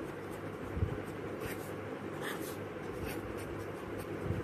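Pen scratching on notebook paper in short strokes while writing, over a steady low background hum.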